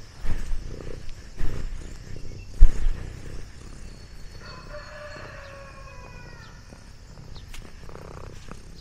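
A few low thumps and bumps against the camera in the first three seconds, the loudest near three seconds in, as the cat brushes up against it. Then, about four and a half seconds in, a faint, distant rooster crow with one drawn-out, slightly falling note.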